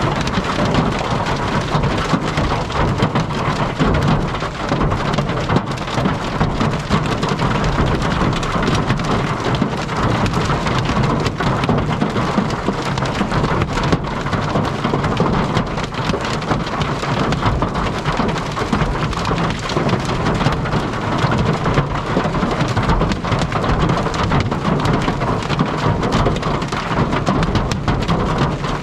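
Heavy rain in a severe thunderstorm beating steadily on a storm-chasing vehicle, a dense patter of sharp hits over a constant rushing roar.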